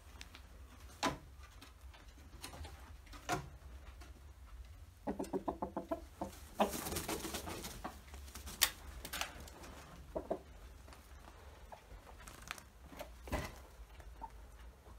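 Backyard chickens clucking, with a quick run of clucks about five seconds in, and a few sharp knocks and scuffs from birds moving and scratching on the dirt.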